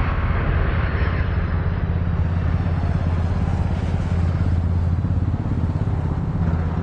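Boeing 737 jet airliner's engines running on the runway: a steady low rumble with a broad rushing noise over it.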